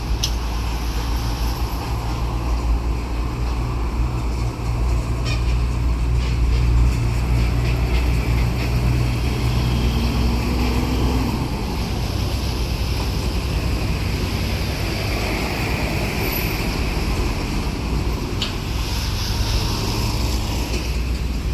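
Diesel engine of a railway heavy track-maintenance vehicle running steadily with a low hum, with a few sharp clicks.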